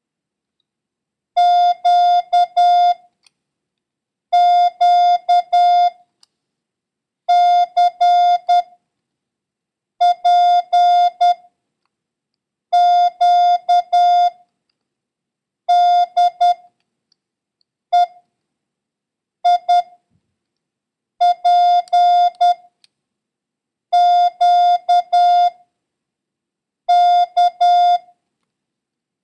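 Morse code practice tone: a single steady mid-pitched beep keyed on and off in dits and dahs, one letter about every three seconds with silence between. The letters sent are Q, Q, C, P, Q, D, E, I, P, Q, K, a random copying run weighted toward Q.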